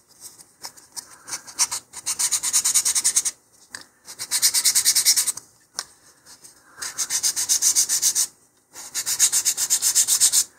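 220-grit sandpaper rubbed back and forth over a wooden rocket fin coated with sanding sealer, in about four runs of quick, even strokes with short pauses between. This is a light sanding to knock the high spots off the first coat of sealer while leaving the low spots filled.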